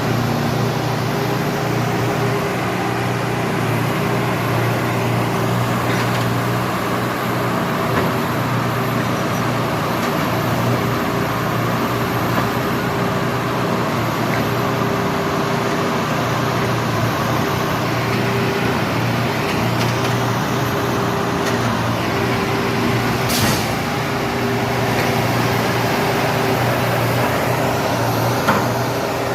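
Engines of railroad track-repair machines running steadily, with a couple of short sharp knocks, the clearest about 23 seconds in.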